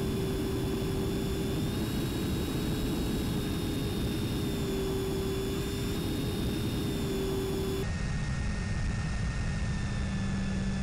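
Onboard audio from an FPV model plane in low flight: a steady rush of air with the motor's steady whine, which wavers slightly in pitch. About eight seconds in, the sound turns duller and the whine drops to a lower pitch.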